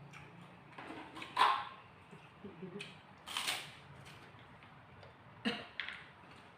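Close-up eating sounds of crispy fried tilapia: a few short crunches and mouth noises while chewing, the loudest about a second and a half in, with others near the middle and near the end.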